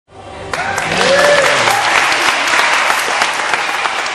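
Audience applauding, with a few cheering calls, starting suddenly out of silence.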